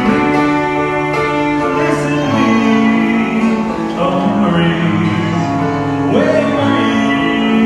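A live vocal duo singing a classic Italian song over instrumental accompaniment, with long held notes.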